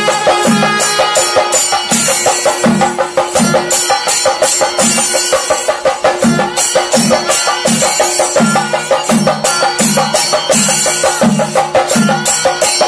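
Traditional Indian percussion music: a deep drum beating a steady slow rhythm, about one and a half strokes a second, over a held drone tone and quick, dense high strokes.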